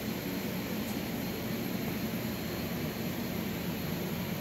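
Industrial machinery of a CNC router setup running steadily: an even rushing drone with a low hum underneath.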